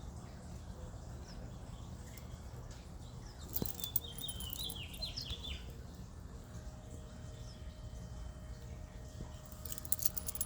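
A small songbird gives a quick run of chirps about three and a half seconds in, with a few sharp high chips near the end, over a steady low background rumble.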